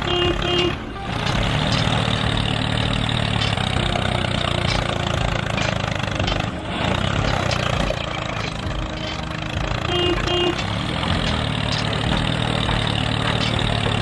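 Steady engine rumble like heavy machinery idling and working, with a short double beep near the start and again about ten seconds in.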